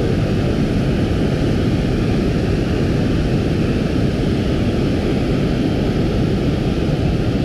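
Steady rushing roar of water pouring over a dam spillway, loud and unbroken, heaviest in the low rumble.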